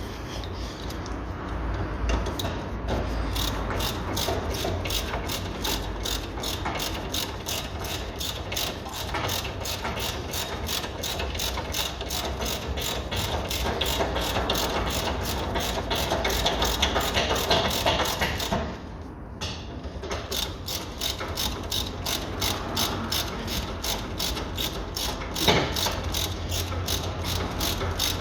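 Hand ratchet wrench clicking in a rapid, even rhythm as it winds in the brake caliper carrier bolts. It stops briefly about two-thirds of the way through, then resumes.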